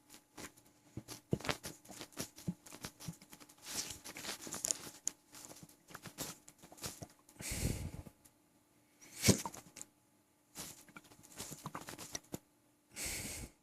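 Close-up sounds from a full, bloated stomach: a dense run of small crackling gurgles and sloshes, broken by a few longer rushes of noise and one sharp, louder stroke about nine seconds in.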